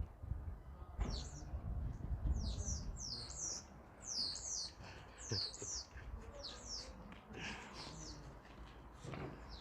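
Birds calling: a quick series of short, high-pitched chirps, each sliding down in pitch, over a low background rumble.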